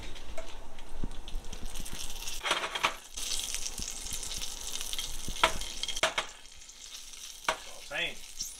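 Live superworms frying in hot, seasoned oil in a small pan: a steady sizzle with sharp crackling pops, which eases somewhat after about six seconds.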